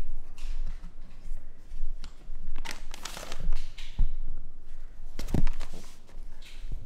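Plastic treat bag rustling and crinkling in short bursts, the longest about two and a half seconds in, with a few soft thumps.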